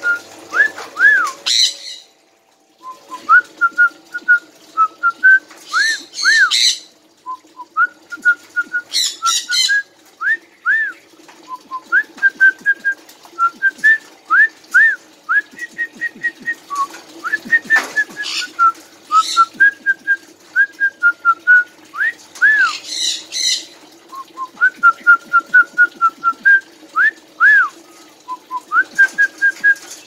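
Red-breasted parakeet whistling a short learned phrase over and over: a run of quick notes ending in two or three rising-and-falling notes, repeated every few seconds. Now and then it breaks into brief harsh squawks.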